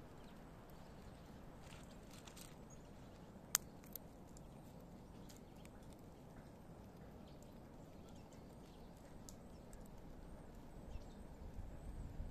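Squirrel gnawing nuts: faint, scattered small clicks and cracks of teeth on nutshell, with one sharper crack about three and a half seconds in. A low rumble builds near the end.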